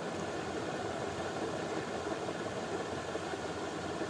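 Steady background noise, an even hiss and hum from the recording microphone and room, with no distinct sound event.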